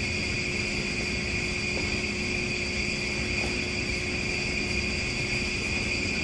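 Steady room tone of a large hall: an even low rumble with a faint, steady high-pitched whine and hum, and no distinct events.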